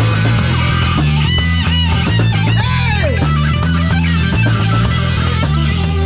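Live rock band playing: an electric guitar through a Marshall amplifier plays a lead with bent, gliding notes from about a second in, over a steady bass line.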